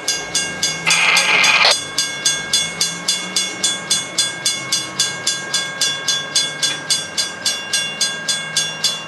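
Grade-crossing warning bell ringing steadily, about four strokes a second, with a short hiss about a second in.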